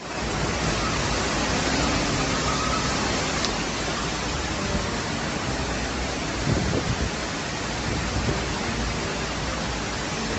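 Steady, even rushing noise of water, of the kind made by heavy monsoon rain or fast-flowing floodwater.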